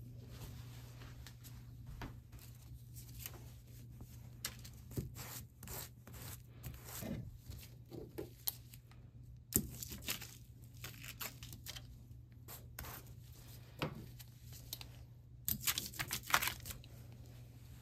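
Crumpled aluminium foil crinkling and crackling in scattered small bursts as it is handled, then a rubber brayer rolled over it, with a denser run of crackles about sixteen seconds in. A faint steady hum lies underneath.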